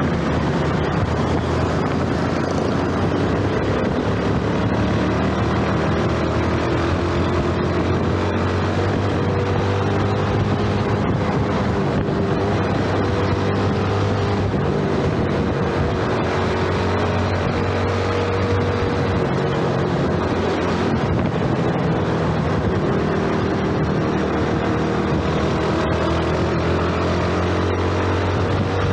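A Yamaha 115cc underbone motorcycle's single-cylinder four-stroke engine running under way, its pitch rising and falling gently with the throttle, with wind noise on the microphone.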